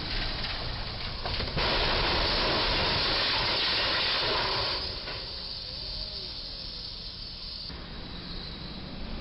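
A box truck's cargo box strikes and scrapes along the low railroad bridge's crash beam: a sudden loud noise of crashing and scraping that starts about a second and a half in and lasts about three seconds, then falls back to a quieter traffic background.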